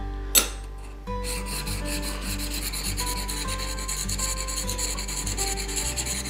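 Steel plane iron of a Stanley #1 bench plane being lapped flat by hand on the very coarse side of a wet diamond stone: a fast, even rasping scrub of back-and-forth strokes, starting about a second in after a single click. The lapping takes the cup out of the blade's back.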